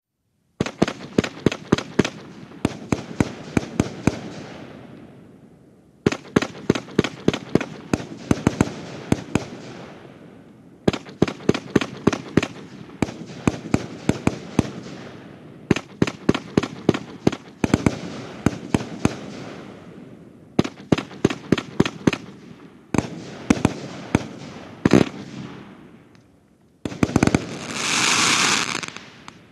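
Nico 'Out of Limits' 36-shot 35 mm fireworks cake firing its shots in quick succession: clusters of sharp bursting reports separated by short lulls. Near the end, a loud continuous rush of noise as the finale fires.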